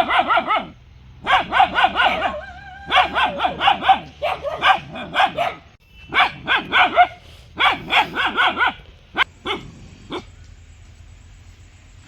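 A dog barking fast and loud, in runs of several barks at about five a second with short pauses between runs. Near the end it gives a few single barks, then stops about ten seconds in.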